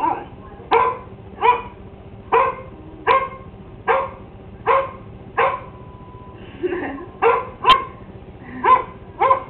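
A dog barking over and over, a short sharp bark roughly every three-quarters of a second, about a dozen in all, with a brief break and a softer whine-like call about two-thirds of the way through.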